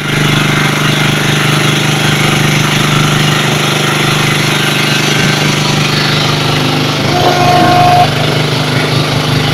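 Boat engine running steadily at close range, a strong low hum with an even pulse. About seven seconds in, a brief high steady tone sounds over it.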